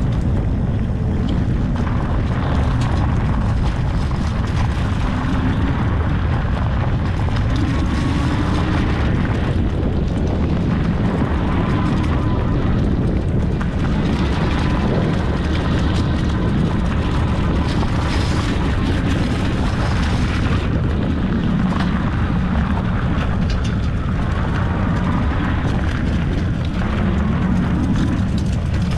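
Heavy, steady wind rumble on the microphone as it moves along with a ridden e-bike, with a faint wavering whine beneath it.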